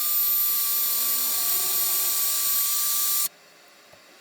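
Electric drill running at a steady speed for about three seconds while boring a screw hole through a piece of wood, starting and stopping abruptly.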